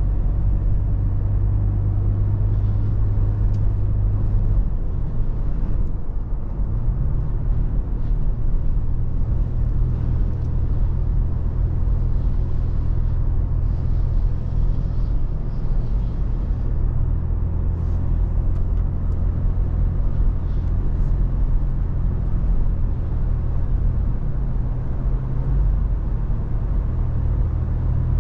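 Toyota FJ Cruiser's 4.0-litre V6 running while driving: a steady low engine hum over a low rumble, its pitch stepping a few times as speed or gear changes.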